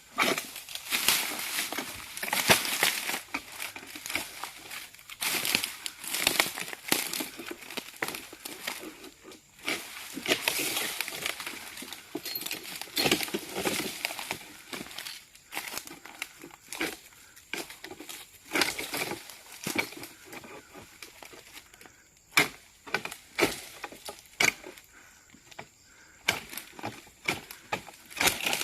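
Leaves and branches rustling and crackling in irregular bursts, with no chainsaw running.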